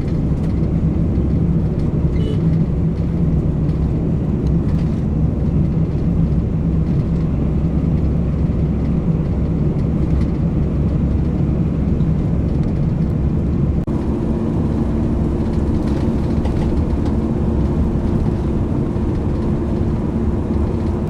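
A motor running steadily with a low drone, its pitch shifting about fourteen seconds in.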